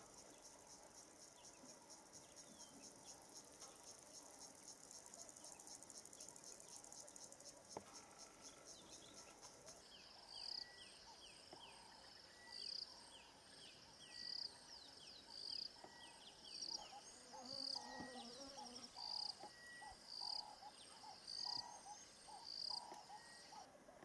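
Faint wild ambience: insects trilling in a fast, even pulse, then from about ten seconds in a bird repeating a short call phrase about once every second and a bit.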